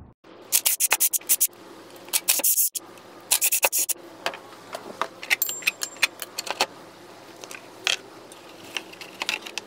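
Cordless power driver run in three short bursts of rapid metallic clicking, backing out the T30 Torx bolts of the engine cover. Scattered clicks and scrapes follow as the plastic cover and nearby parts are handled.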